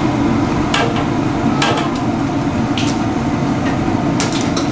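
Metal slotted spoon clinking against a steel tray and wok as fried samosas are lifted out of the oil: a handful of sharp clinks, the last few close together near the end, over a steady background hum.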